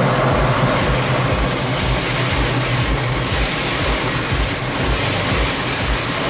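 Automatic car wash water jets spraying over the car, heard from inside the cabin as a steady hiss of water on the glass and body. Under it runs a low, even thumping about two to three times a second.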